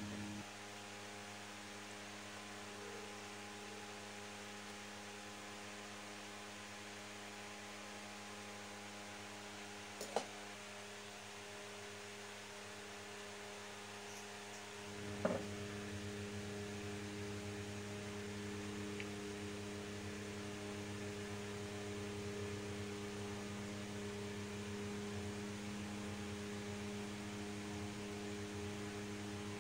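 Steady electrical hum, with two small clicks of hand tools on the chainsaw, about ten and fifteen seconds in. After the second click the hum grows louder and deeper.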